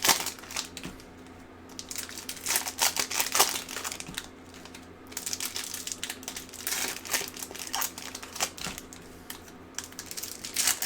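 Plastic wrapping of trading card packs crinkling in several short bursts a few seconds apart, as the packaging is handled and opened.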